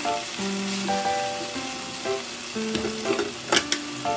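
Ground meat sizzling in a frying pan as it is stirred with wooden chopsticks, under background music. A couple of sharp knocks about three and a half seconds in.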